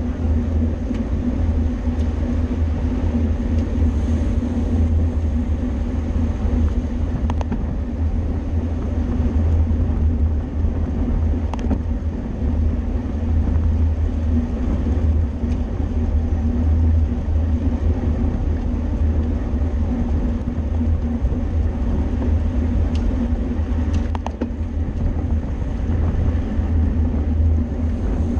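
Steady low rumble of wind on the microphone of a camera moving with a racing bicycle, with road and tyre noise beneath it and a few faint clicks.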